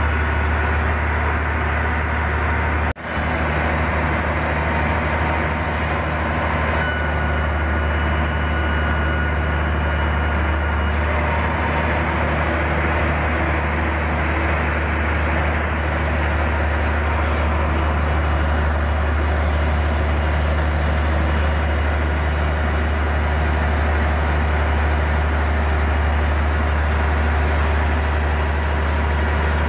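Heavy diesel machinery running steadily: a bulldozer working a stuck dump truck, with a strong constant low engine hum. The sound breaks off for an instant about three seconds in.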